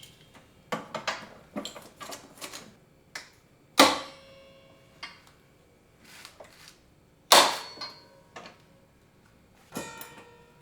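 Metal clanking: two loud, sharp knocks, each ringing on briefly, among lighter clicks and rattles of steel tools and parts being handled.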